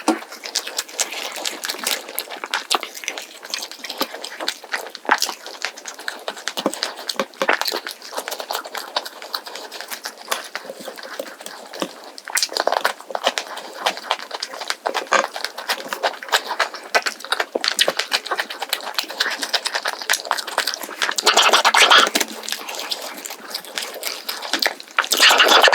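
Close-miked eating sounds: a steady run of small crackles and crunches as someone chews crisp roast chicken and scorched rice, with a few louder, denser bouts of crunching.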